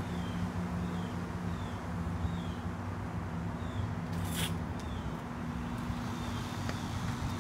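A steady low mechanical hum, with a bird chirping short falling notes over it about twice a second. A brief rustle about four and a half seconds in.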